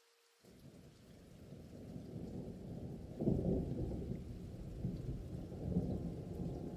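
Low rumbling thunder with a rain-like hiss, starting suddenly about half a second in, building, and swelling in two heavier rolls at about three seconds and near six.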